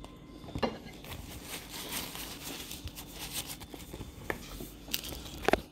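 A person chewing food close to the microphone: wet mouth sounds with a few sharp clicks and smacks, the loudest near the end.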